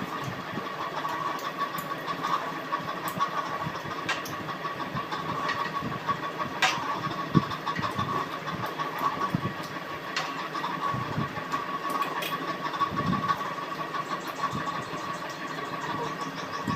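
Chewing and eating sounds with a few sharp small clicks, over a steady background hum.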